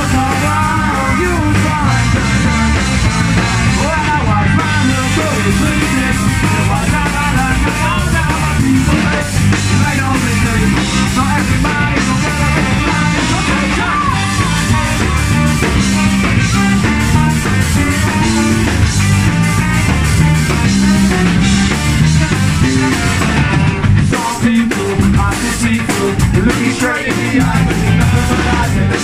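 Live ska-punk band playing loud: electric guitar, drums and trombone with a sung lead vocal.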